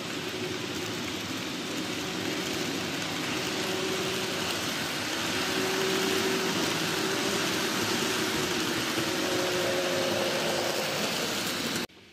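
N gauge model trains running on track: a steady rolling rattle of small wheels on rail with a faint electric-motor whine. It grows louder as the train of red coaches passes close, then cuts off suddenly near the end.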